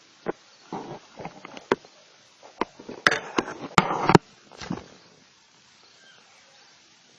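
A series of sharp taps and knocks mixed with short scuffling rustles, thickest and loudest about three to four seconds in, then stopping.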